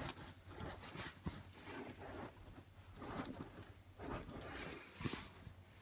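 A hand pressing and patting a flocked vinyl air mattress that is not yet fully inflated, giving faint, irregular soft rustles and muffled thuds.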